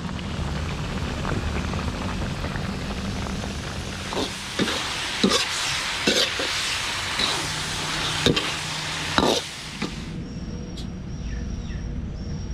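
Whole quail deep-frying in a metal wok of hot oil, sizzling steadily. From about four seconds in, a metal ladle knocks and scrapes against the wok several times as the quail are stirred. Near the end the sizzling stops, leaving quieter surroundings with faint high chirps.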